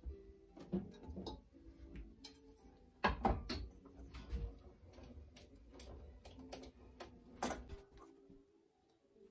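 Kitchen clatter: a frying pan and other cookware knocked and set down on a stove, a scatter of sharp knocks and clicks, the loudest about three seconds in and again near seven and a half seconds in.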